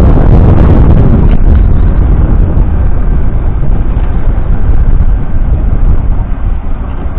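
Case IH Puma 175 CVX tractor's 6.7-litre six-cylinder diesel running steadily under load, pulling a working Pottinger Impress combination baler wrapper. The noise is loud and heavy in the low end.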